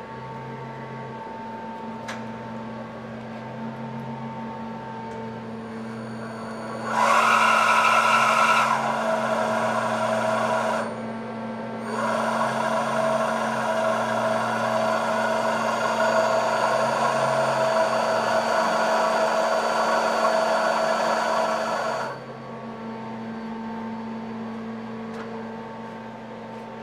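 Traub CSK300 vertical CNC machining center running with a steady hum. Twice it sets into a much louder whirring with a high hiss: a short spell of about four seconds, then, after a brief drop, a longer one of about ten seconds that cuts off suddenly.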